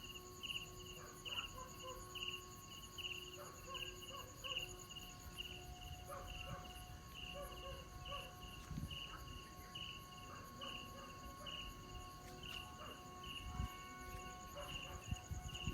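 Crickets chirping in short pulses about twice a second, over faint steady hums at several pitches from Vietnamese kite flutes (sáo diều) blowing in the wind.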